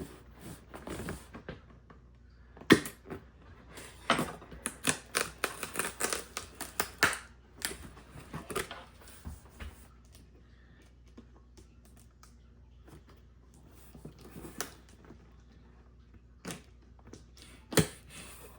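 Cardboard box being opened and its cardboard packing handled: irregular clicks, taps and scrapes, thickest in the first half, with a sharp knock about three seconds in and another near the end.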